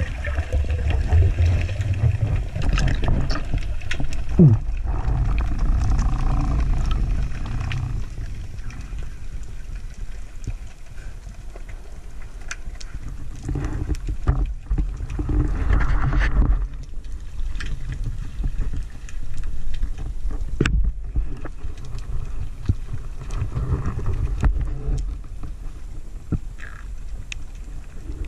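Underwater ambience heard through an action camera's waterproof housing during a freedive: a muffled, fluctuating low rumble of moving water, with scattered sharp clicks and knocks and one short falling tone about four seconds in.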